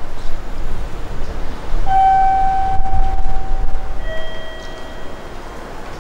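A two-note descending chime: a higher note held about two seconds, then a lower note for about a second, over a steady low rumble.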